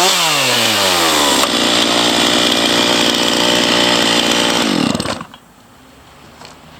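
Chainsaw cutting the corners off a wooden vase blank, its pitch dipping and climbing under load at first, then running steady. About five seconds in the motor winds down and the sound cuts off, leaving it faint.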